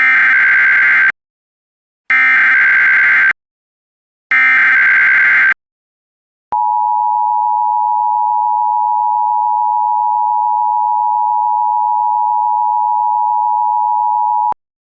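Emergency Alert System SAME header: three short bursts of screeching digital data tones, about a second each. A moment later comes the EAS attention signal, a steady two-tone tone (853 and 960 Hz) held for about eight seconds, which cuts off suddenly.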